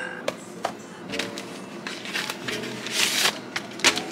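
Crinkling of a plastic smoked-salmon package being handled, with scattered clicks and taps of a plate and kitchenware on a stone countertop. The loudest rustle comes about three seconds in.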